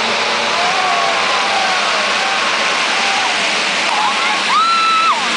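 A full gate of 450cc motocross bikes revving and pulling away from the start line, making a dense, steady engine roar with single engine notes gliding up and down through it. A short, high held note stands out near the end.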